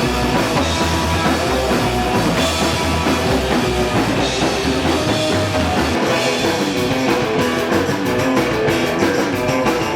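Loud rock music with a drum kit and guitar, in a punk rock style, playing steadily.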